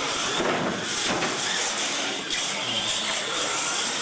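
R/C monster trucks racing down a concrete track: a steady, high hissing whine from their motors, drivetrains and tyres.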